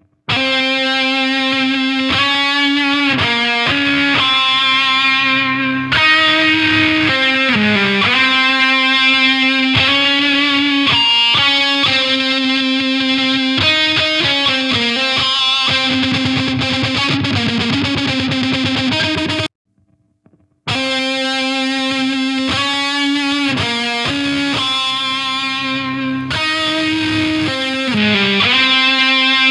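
Heavily distorted electric guitar playing a riff of held, sliding chords, as a playback of a recorded track through an EQ plugin. It is brighter in the top end from about six seconds in; it stops for about a second two-thirds of the way through, then the same passage starts again.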